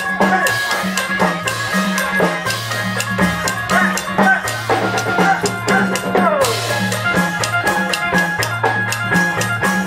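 Live Isan folk band music with a drum beat and a repeating bass line, cut through by many sharp clicks of mak kap kaep wooden clappers played by dancers.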